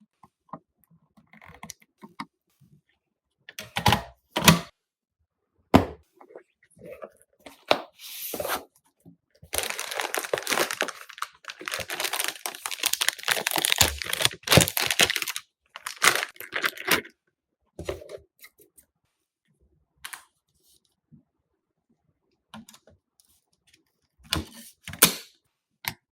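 Handling noises while PC parts are assembled: scattered clicks and knocks, with a long stretch of tearing and crinkling in the middle.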